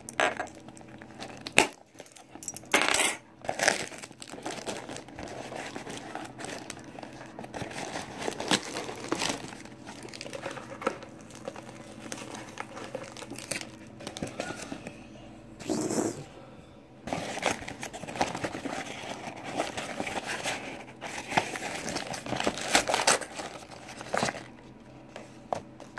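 Packaging crinkling and rustling as a small parcel is unwrapped by hand, with scattered sharp clicks and knocks from the box being handled. A cluster of louder handling noises comes about three seconds in, and again around sixteen and twenty-three seconds in.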